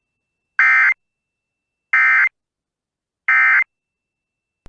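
Three short bursts of EAS SAME digital data tones from NOAA Weather Radio, each about a third of a second long and about 1.3 seconds apart: the End of Message code that closes the alert.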